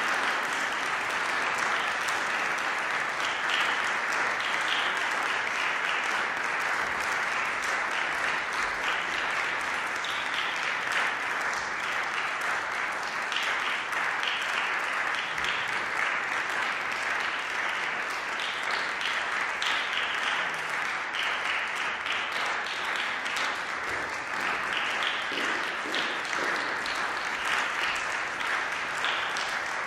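An audience applauding, steady and unbroken.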